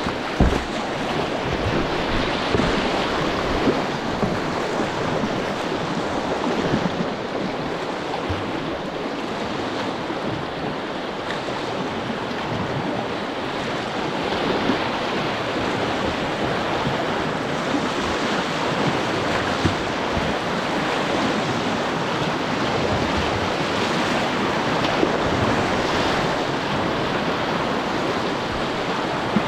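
Steady rush of white water from a shallow river rapid.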